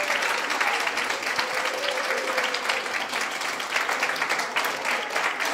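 Crowd applause: many hands clapping in a dense, steady patter.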